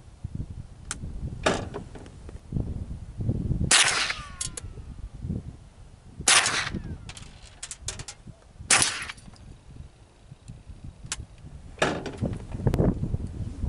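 Five shots from a .22 Long Rifle rifle, about two and a half seconds apart, with fainter sharp ticks between them. Wind rumbles on the microphone throughout.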